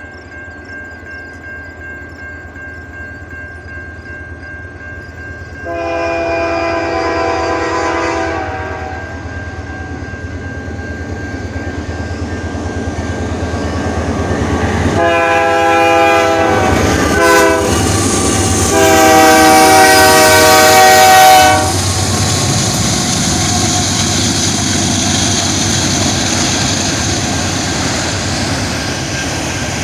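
Grade-crossing bell ringing, then a Canadian Pacific locomotive horn sounds a long blast, a short one and another long one as the train nears the crossing. The train then rolls past, its wheels clicking over the rail joints.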